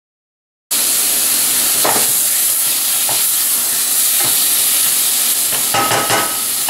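Diced beef sizzling in a pot with onions, garlic and carrots as it starts to brown, with a spoon stirring and scraping through it now and then. The sizzle cuts in suddenly just under a second in.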